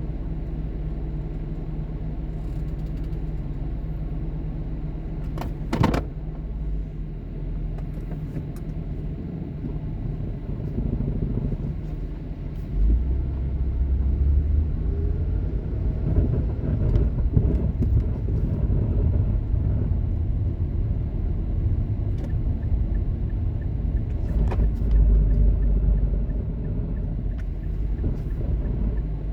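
2006 Mazda6 S wagon running steadily, with one sharp knock about six seconds in. About halfway through it gets louder and rumbles unevenly, rising and falling in pitch as it pulls away and drives. The owner reports a grinding, scraping noise from the front of the car that comes while it is cold and goes away once it warms up.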